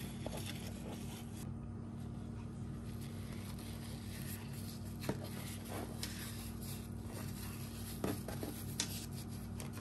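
Paper being folded by hand into small packets: faint rustling with a few soft clicks, over a steady low hum.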